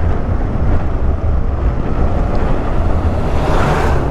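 Wind buffeting the microphone of a moving motorcycle, a loud steady low rumble of wind and road noise, with a gust of brighter hiss swelling near the end.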